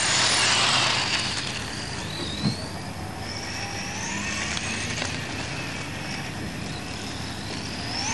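Small two-stroke engines of racing RC model cars, a high whine rising and falling in pitch as the cars accelerate and back off, loudest in the first second as one passes close. A single short knock about two and a half seconds in.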